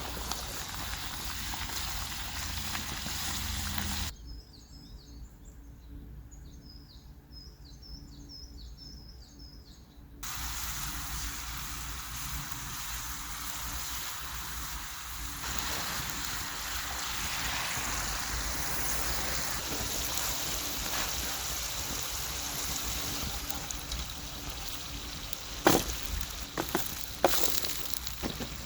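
Potato wedges sizzling in a pan over a campfire, a steady frying hiss. It drops out for several seconds while a bird gives a run of short, repeated high chirps, then comes back. A few sharp knocks come near the end.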